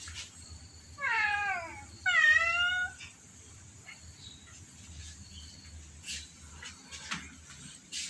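A cat meowing twice in quick succession, the first call falling in pitch and the second louder.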